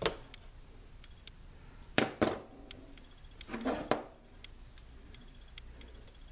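Sharp metallic clicks and clacks of a hand wire stripper/crimper working at the chassis wiring, as a wrongly connected, unsoldered wire is taken back off a terminal lug. There is one click at the start, two close together about two seconds in, and a short cluster near four seconds.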